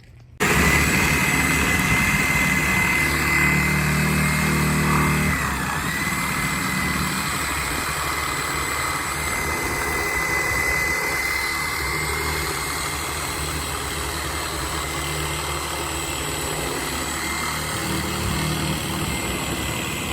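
An engine running steadily. It starts abruptly about half a second in, with a steady high whine over it.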